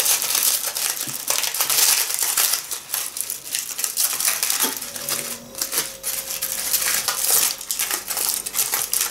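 Aluminium foil crinkling and crackling as a foil parcel is pulled open by hand.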